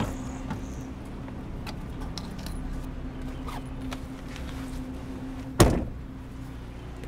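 Car engine idling with a steady low hum and a few small clicks and rustles, then a car door shuts with one loud thud about five and a half seconds in.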